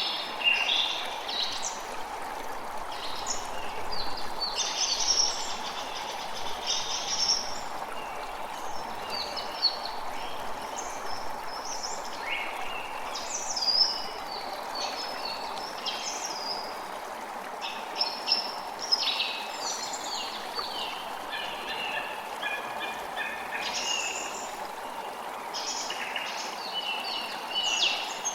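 Forest ambience: many birds singing and chirping in quick, varied phrases over a steady rush of flowing stream water.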